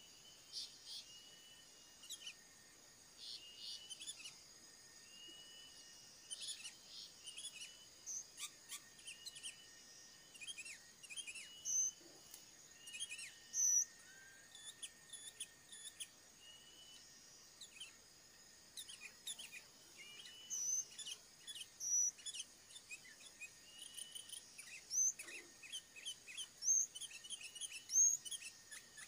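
Small birds chirping and calling in many short, high notes, over a steady high insect hum.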